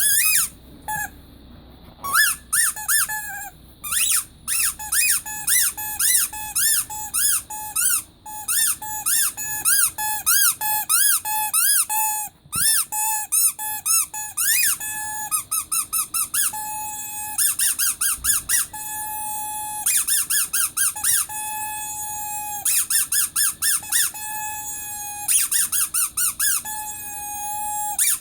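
Rubber squeaky toy bear squeezed over and over: quick runs of short squeaks that bend up and down in pitch, with a few longer, steadier squeaks in the second half.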